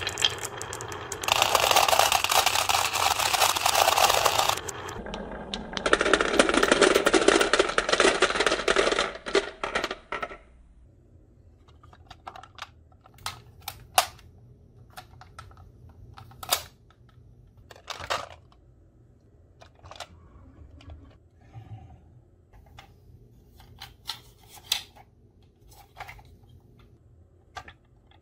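Glass marbles rolling and clattering down a wooden slope into a plastic toy garbage truck: a loud rattling rush in two stretches of a few seconds each. After that come scattered single clicks and knocks of marbles and the plastic truck being handled.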